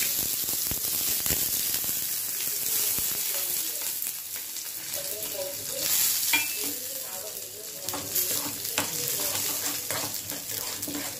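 Oil sizzling steadily in a frying pan as chutney ingredients fry, with a few clicks of a spoon stirring.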